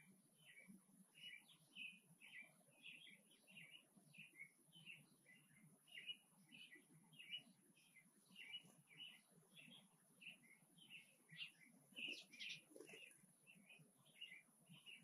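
Small birds chirping: many short, high chirps, several a second, in an irregular run.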